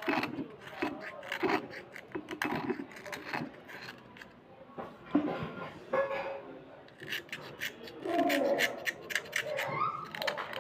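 Small knife blade scraping along a slate pencil in a series of short scraping strokes, which come faster and closer together in the later part.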